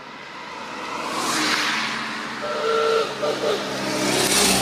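Two cars drive past in turn, first a modern sports roadster and then a vintage open touring car, the sound of each swelling up and fading as it goes by. A short steady tone sounds around the middle, between the two passes.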